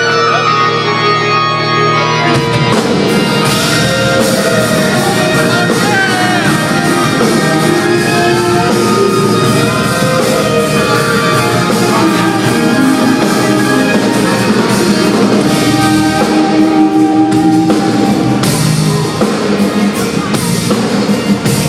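A band playing rock-styled music: held keyboard chords at first, then drums and electric guitar come in about two seconds in and the full band plays on loudly.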